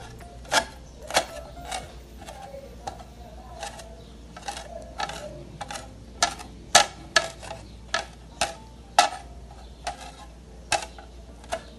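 Kitchen knife chopping fresh cilantro on a cutting board: sharp knocks of the blade against the board at about two a second, softer for a couple of seconds near the start.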